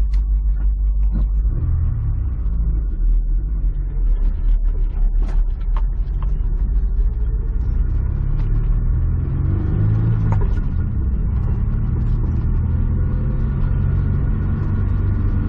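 Honda S2000 engine pulling away and accelerating, its pitch rising through the gears, with a steady low rumble and scattered light clicks.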